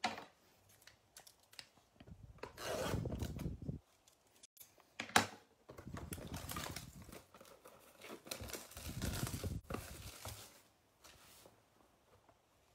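A blaster box of football cards being opened by hand: rubbing, scraping and tearing of its wrapper and cardboard in several short bursts, with a sharp snap about five seconds in.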